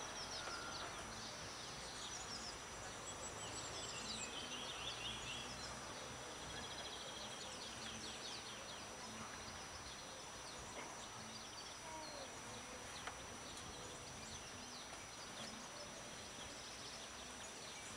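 Open-air background noise with small birds chirping in quick, short high calls, busiest in the first several seconds.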